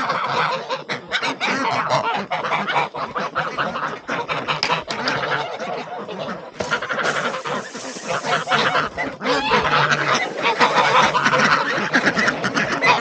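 A flock of geese honking with many calls overlapping, ducks quacking among them. A steady hiss runs under the calls for a couple of seconds about two-thirds of the way through.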